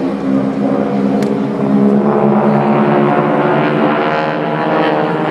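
Aircraft engine running with a steady drone that grows a little louder about two seconds in, with a single sharp click just after the first second.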